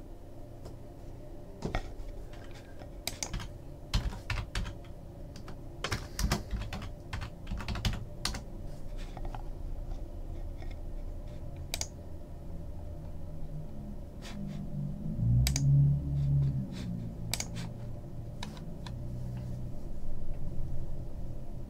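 Typing on a computer keyboard: scattered, irregular key clicks. A short low hum comes about two-thirds of the way through.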